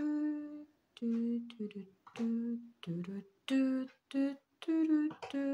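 A woman humming a short tune: a string of held notes, each about half a second long, with brief gaps between them.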